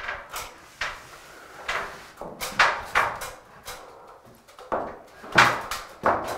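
Irregular knocks, bumps and scrapes of a heavy pine ceiling frame being pushed up and jammed into place against the ceiling, with the loudest knocks about two and a half seconds in and again about five and a half seconds in.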